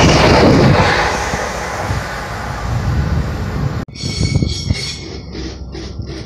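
Electric multiple-unit passenger train passing close at speed: a loud, even rush of wheels on rail and moving air that fades over the first few seconds. About four seconds in, the sound cuts off abruptly to a much quieter background.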